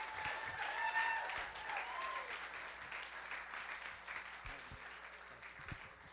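Congregation applauding, the clapping fading away steadily over several seconds.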